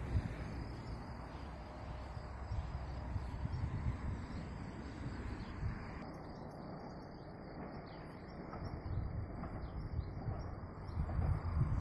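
Rural outdoor ambience: many small birds chirping in short falling notes over a faint, steady high trill, with an uneven low rumble that swells near the end.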